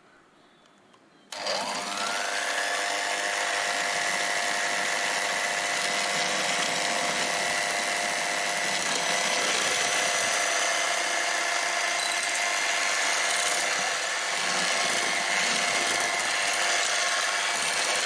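Electric hand mixer switched on about a second in, its motor whine climbing quickly to speed and then running steadily as its twin beaters whip egg yolks into meringue for a sponge-cake batter.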